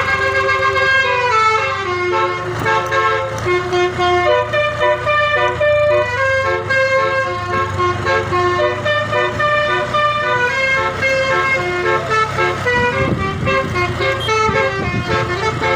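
Bus telolet air horn playing a multi-note melody, its notes stepping up and down in pitch, over a steady low hum.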